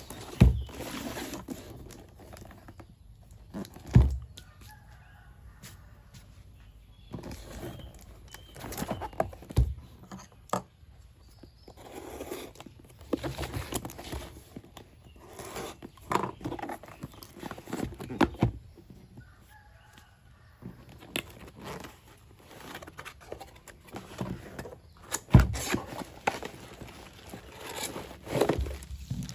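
Drill box and packaging being handled: scattered knocks and clunks with rustling in between, the sharpest knocks about half a second, four seconds and twenty-five seconds in. Chickens cluck faintly in the background.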